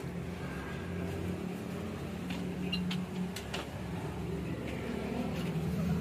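Steady low engine hum running throughout, with a few faint clicks and knocks in the middle.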